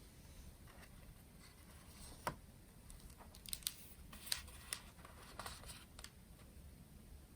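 A scattering of faint, short clicks and rustles, like small objects or paper being handled, over a low steady hum; the clicks come in the middle few seconds.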